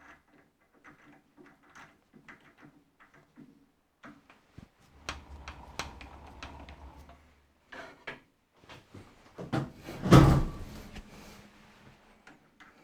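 Light metal clicks and scrapes of tools and a workpiece being handled and turned by hand at a metal lathe, with one loud clunk about ten seconds in.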